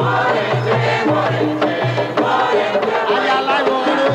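Afro-Cuban Yoruba religious music: hand drums beat a repeating pattern under a sung chant.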